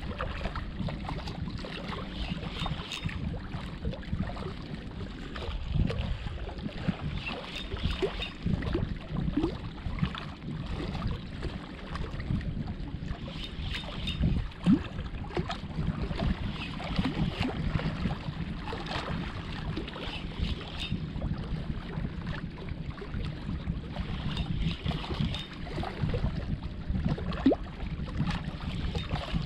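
Steady wind rumble on the microphone over water lapping at shore rocks, with a spinning reel being cranked at times to retrieve a jig.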